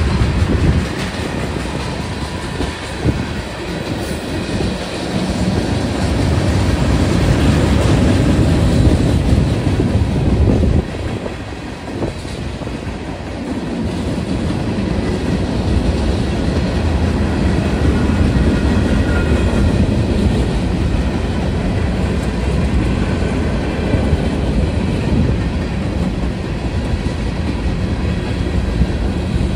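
Freight cars (tank cars, a boxcar, a centerbeam flatcar and covered hoppers) rolling past, their steel wheels clacking over the rail joints with a steady rumble, dipping briefly about eleven seconds in.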